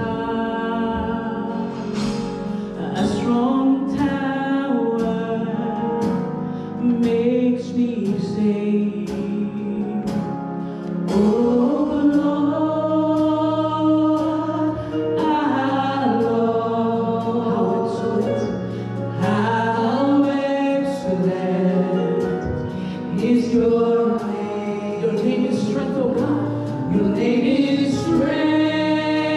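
Gospel worship music: a choir singing with instrumental backing, sustained low bass notes and a regular percussive beat.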